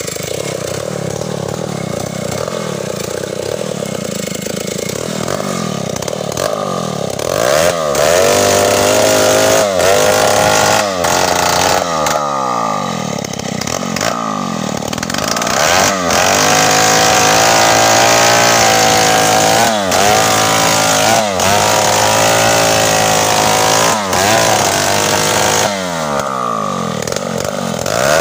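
Stihl chainsaw idling, then revved again and again in short bursts from about seven seconds in, with a longer stretch held at steady high revs in the middle.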